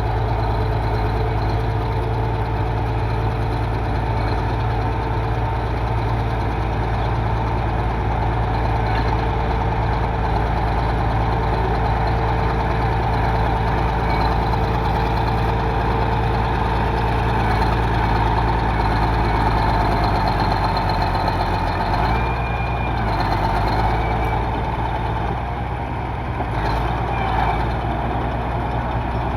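D95 bulldozer's diesel engine running steadily. Its note shifts a little about two-thirds of the way in, followed shortly after by a brief high squeal.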